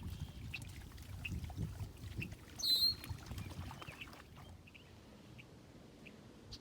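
A bird gives one short call about two and a half seconds in, the loudest sound here, over a low outdoor rumble with faint scattered ticks.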